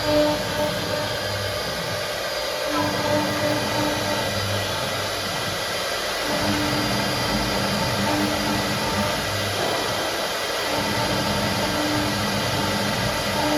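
CIMS1325 CNC router running, its spindle and drives making a steady whirring noise with faint steady tones. The lower part of the sound shifts every few seconds as the machine works.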